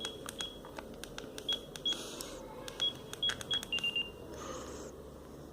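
Keypad of a Sagem MW 3022 mobile phone: a string of button clicks, most with a short high key beep, about seven beeps in all. A slightly lower, longer beep comes near the end.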